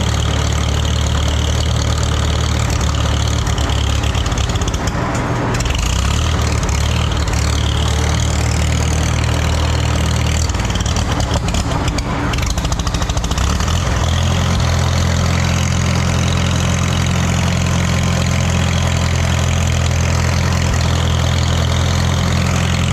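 Antique tractor engine running steadily. Its note shifts to a new steady speed about thirteen seconds in.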